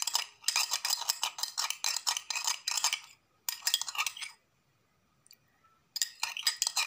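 A spoon stirring lime juice and soy sauce in a container, clinking quickly and repeatedly against its sides. It stops for a moment and then resumes about six seconds in.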